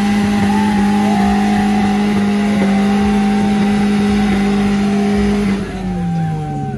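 Car engine revved and held at a steady high pitch, then the revs fall away about five and a half seconds in.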